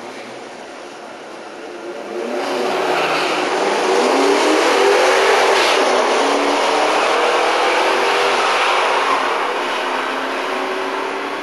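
Two Mustangs, one a 1967 Mustang with a 390 big-block V8, launch off a drag-strip starting line about two seconds in. Both engines rev hard, climbing in pitch as the cars accelerate down the strip, then fade slightly toward the end as the cars pull away.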